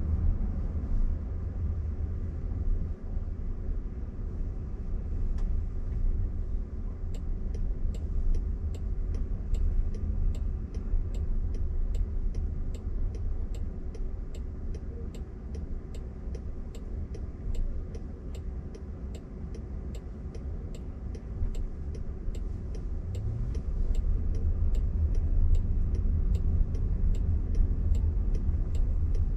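Turn-signal indicator of a Waymo Jaguar I-Pace robotaxi ticking steadily in the cabin, about two clicks a second, starting about seven seconds in. Underneath runs the electric car's low road and tyre rumble.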